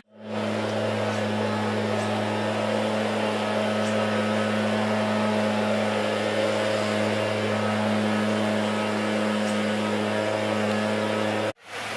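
A steady low machine hum at a constant pitch, with a hiss above it; it cuts off abruptly near the end.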